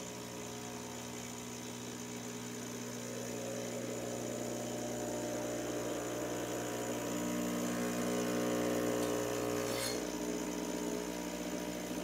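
Rancilio Silvia espresso machine's vibratory pump running steadily as it fills the empty boiler: a steady buzzing hum whose tone shifts about seven seconds in and again about ten seconds in.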